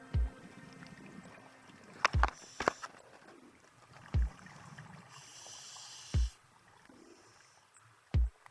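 Underwater sound on a scuba dive: a deep thump about every two seconds, a few sharp clicks around two to three seconds in, and a hiss from about five to six seconds in.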